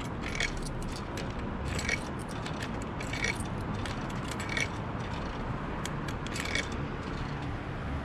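Coins fed one at a time into a vending machine's coin slot: five short metallic clinks, one to two seconds apart, as each coin drops through the coin mechanism, until the credit covers a drink. Steady low rumble underneath.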